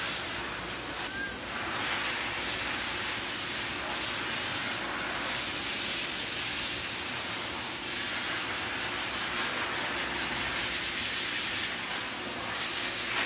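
Steady hiss of background noise, with one faint short cat meow about a second in.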